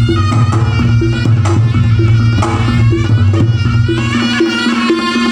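Javanese gamelan ensemble playing a langgam, with kendang hand-drumming and a repeating pattern of struck tuned notes over a sustained low hum and a melody line.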